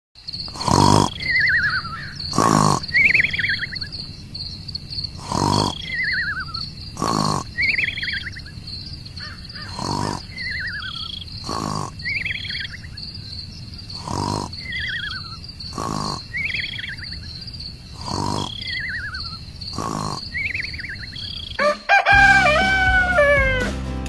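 Looping background track of soft knocks about every second and a half, alternating with short falling bird-like chirps over a steady high tone. Near the end it gives way to a sliding, pitched sound.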